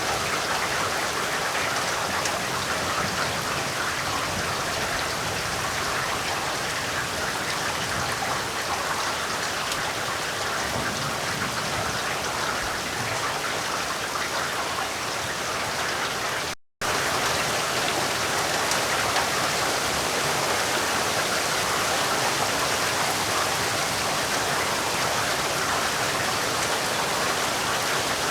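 Heavy rain falling in a steady, even hiss. It cuts out for a split second about two-thirds of the way through, then resumes unchanged.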